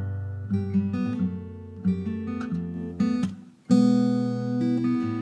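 Fingerpicked acoustic guitar track playing back in a before-and-after comparison of a compressor's tone-shaping EQ. It sounds dull at first, with the high end cut away. After a brief drop about three and a half seconds in, it comes back much brighter.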